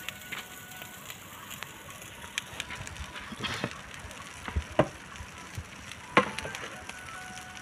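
Charcoal fire under fish grilling on banana leaves, crackling faintly, with a few sharp pops about halfway through.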